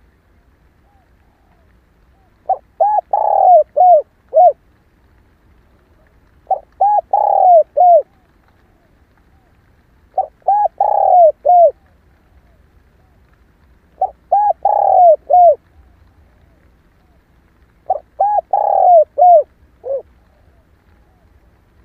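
Female spotted dove cooing: five phrases about four seconds apart. Each phrase is a quick run of short coos around one longer, louder coo.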